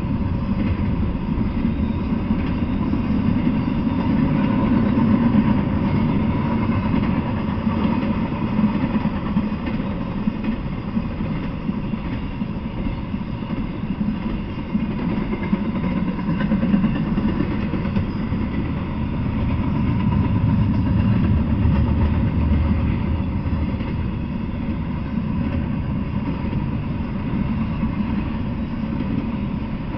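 Double-stack intermodal freight train rolling past: a steady rumble of wheels on the rails that swells slightly a few times.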